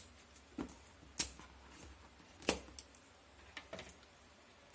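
Scissors snipping through the packing straps on a cardboard box: a handful of sharp, irregularly spaced snips.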